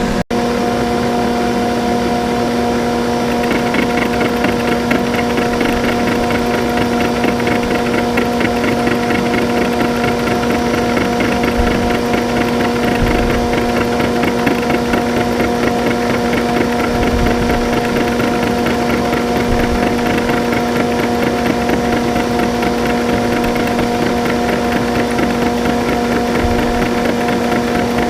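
Metalworking machine tool running with a steady hum. A fast, rough, rattling texture joins about three and a half seconds in and keeps on, typical of a cut being taken in metal.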